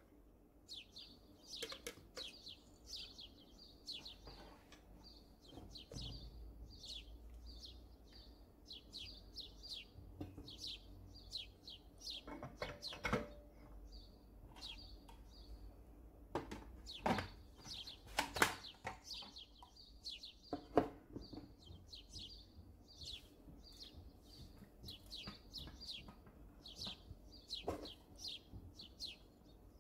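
A small bird chirping over and over in short, high calls, with a few sharp clicks and knocks of plastic food-processor parts and dishes being handled, the loudest knocks past the middle.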